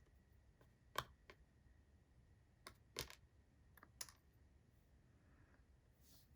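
Near silence broken by a handful of light clicks and taps of small objects being handled, the clearest about one second and three seconds in.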